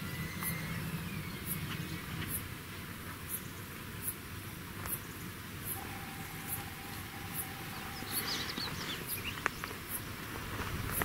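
Prairie ambience: a high insect chirp repeating about once a second over a low steady rumble, with a brief burst of small bird twitters about eight seconds in.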